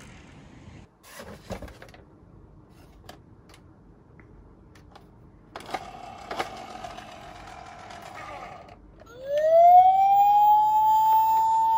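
A few light clicks and taps, a steady tone in the middle, then from about nine seconds in a loud siren wail that rises in pitch and holds high: the siren sound of a toy emergency vehicle.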